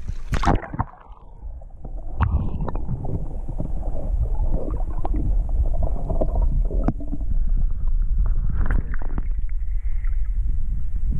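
Water sloshing and a low rumble picked up by a camera held partly underwater beside a wels catfish being let go, with a loud splash at the very start and a few sharp knocks from handling.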